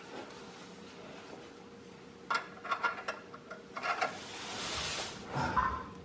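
Someone working under a car: a few light clicks and knocks about two seconds in, then a rustling scrape of clothing sliding on cardboard as he shifts beneath the car, and a dull thump near the end.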